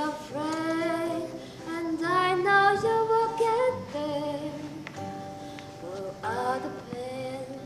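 A woman singing a slow melody, her voice sliding between held notes, to her own strummed and picked acoustic guitar.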